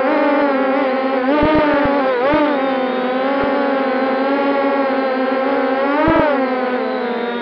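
MJX Bugs 6 quadcopter's brushless motors and propellers whining in flight, heard from the camera mounted on the drone: a steady buzzing hum whose pitch wavers and swings up with throttle, about a second and a half in and again about six seconds in. A few short low knocks come through the frame.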